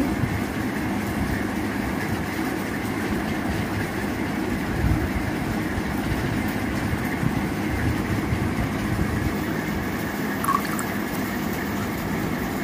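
A steady rumbling noise throughout, with borhani, a thick yogurt drink, being poured into a cup.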